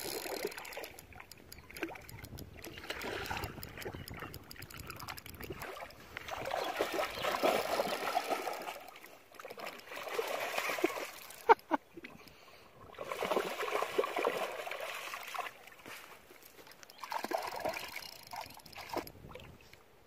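A dog wading and splashing through shallow river water in repeated bursts of splashing a few seconds long, with a single sharp click about halfway through.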